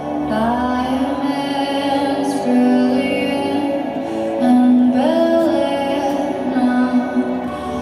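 Dance music with a sung vocal line over long held instrumental chords, the voice sliding up into new phrases about a quarter second and five seconds in.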